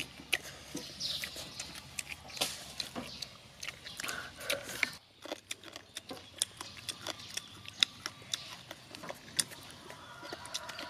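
Chewing and lip-smacking of people eating pork ribs with their hands, a steady run of short mouth clicks and smacks.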